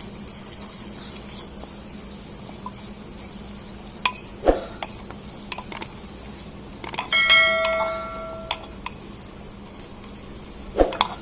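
A spoon stirring and clinking in a small metal pot of frying onion-and-spice masala, over a light sizzle. About seven seconds in, one strike against the pot rings out for about a second and a half.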